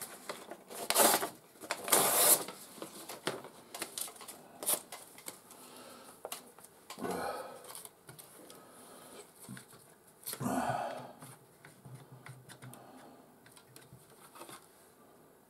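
Small objects being handled on a workbench: a run of clicks, knocks and rustles, loudest in two bursts in the first couple of seconds, then sparser and fainter toward the end.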